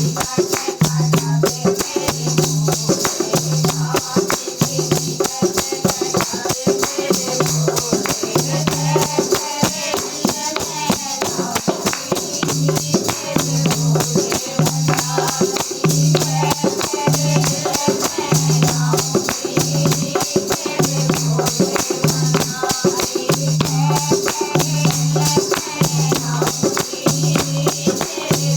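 Devotional bhajan music with dense, rapid jingling percussion over a low note pulsing in a steady rhythm.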